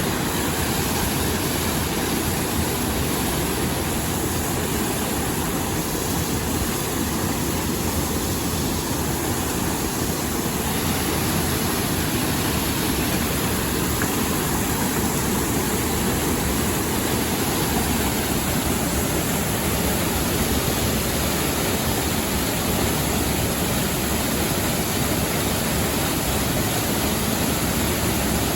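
Steady rush of water in a mountain stream: a constant, even noise.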